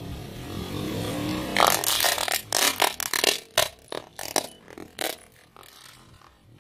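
A car tyre rolls slowly onto a plastic toy tank, then a quick run of sharp cracks and snaps as the plastic body breaks under the tyre's weight. The cracks come thick for a few seconds and thin out near the end.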